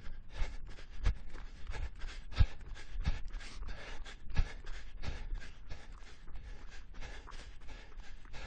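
A person breathing hard while running: quick, rhythmic panting breaths, with regular low thuds, strongest in the first half.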